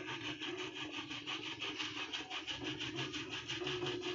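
A block of paneer rubbed up and down a stainless steel box grater, a rapid, regular rasping of about five strokes a second.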